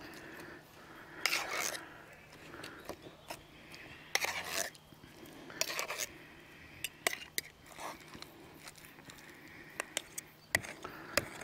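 Metal spoon scraping and stirring in a stainless steel mixing bowl, with sharp clicks of the spoon against the bowl through the second half.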